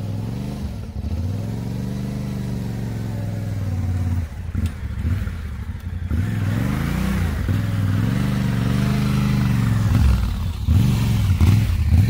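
Yamaha Ténéré 700's parallel-twin engine under way off-road, the revs rising and falling again and again as the throttle opens and closes, with a few short quick blips near the end.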